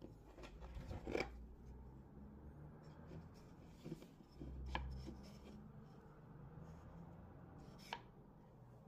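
Small MDF and wooden jig parts being handled by hand, with a few sharp knocks and clicks of wood on wood over soft handling noise.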